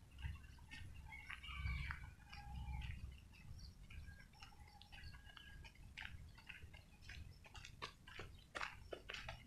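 Quiet outdoor ambience with scattered bird chirps over a low rumble. From about six seconds in come short crunching clicks, like footsteps on a dirt and gravel track.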